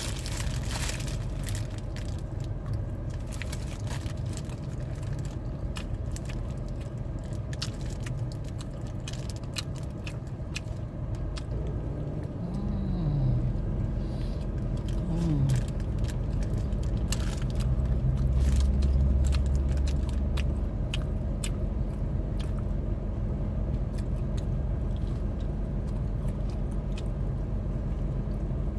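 Bites and chewing on a crispy fish fillet burger, with many small crunches and crackles over a steady low hum.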